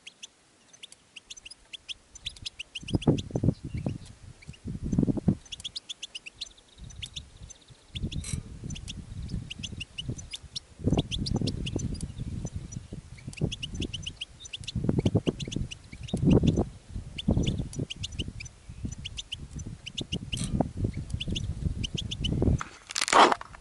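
European goldfinches twittering: quick runs of short, high chirps throughout, exchanged between a caged bird and a wild one. Wind buffets the microphone in low gusts, and there is a loud rustle near the end.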